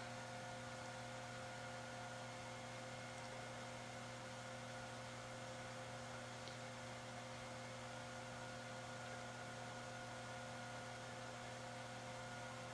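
Steady electrical hum with several fixed tones from a running Sony Vaio PCV-LX1 desktop computer while it boots.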